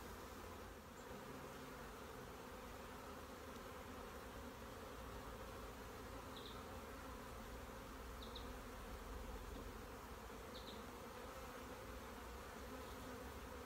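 Honeybees buzzing in a steady hum around an open hive as frames of comb are worked out of the box.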